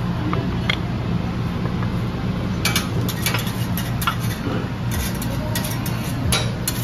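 Restaurant sound: a steady low hum, with a run of sharp clicks and clinks of dishes and utensils starting a little before halfway.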